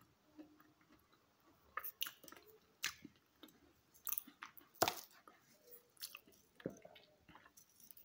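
Close-up chewing and crunching of crunchy chocolate chip cookies: irregular sharp crackles. A cookie is snapped in two partway through, the loudest crack coming a little before the middle.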